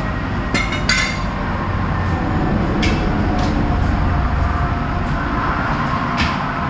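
A few sharp metallic clinks from a propane cylinder and its fittings being handled and hooked up, over a steady low rumble.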